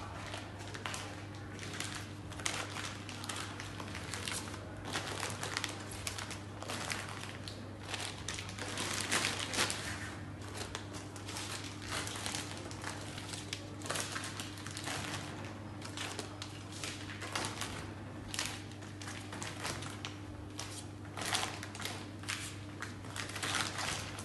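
Plastic food bags crinkling and rustling in irregular bursts as they are handled and packed into a wire basket, over a steady low hum.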